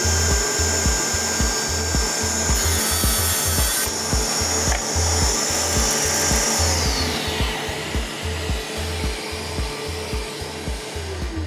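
Festool CSC SYS 50 cordless table saw's brushless motor running at full speed with a steady whine, and its blade cutting a small piece of wood for about a second about three seconds in. The motor is then switched off and winds down with a falling whine. Background music with a steady beat plays underneath.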